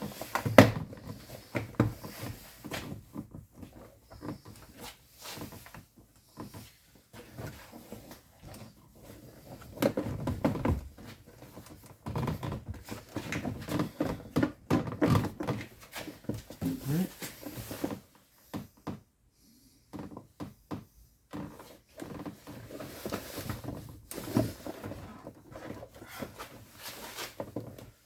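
Plastic interior door trim panel of a VW Touareg being pried and worked loose from the door, with irregular knocks, clicks and rattles as it comes away.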